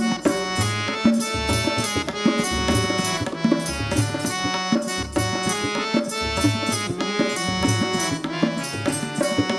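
Instrumental interlude of a devotional bhajan: a harmonium holds chords and melody over a steady rhythm of tabla and dholak drums.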